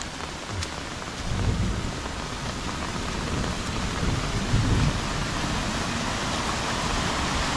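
Steady heavy rain with low rolling rumbles of thunder from about a second in. A small rocky stream's rushing water grows louder near the end.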